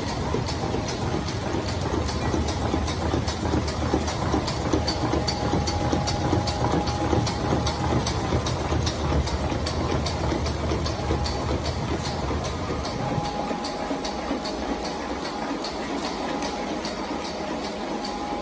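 Rolam GS1100 folder gluer running: steady machine clatter from its belts and rollers carrying cartons through, with an even clicking of about three a second. A deep hum underneath drops away about two-thirds of the way through.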